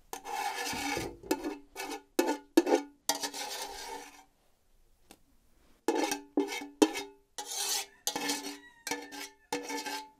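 Scraping inside an enamel pot as boiled yogurt curds are scraped out into a cheesecloth, in irregular strokes, some long and some short, with a pause of nearly two seconds in the middle.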